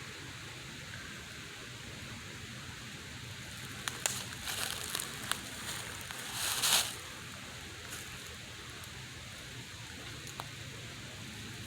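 Quiet outdoor background hiss, broken near the middle by a few seconds of rustling and crackling with sharp clicks, loudest just before the halfway point ends.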